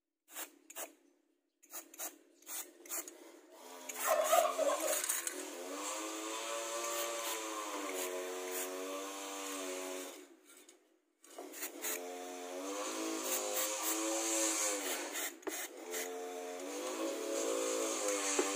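A few light clicks and knocks, then an engine running with its pitch slowly rising and falling, in two long stretches with a short break about ten seconds in.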